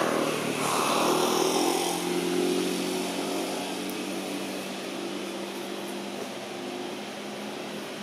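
A motor vehicle engine passing, loudest about a second in and dropping in pitch as it fades to a steady drone.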